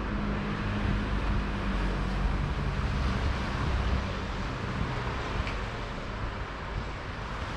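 A motor engine running with a low, steady hum that fades out about five seconds in, over a steady outdoor hiss.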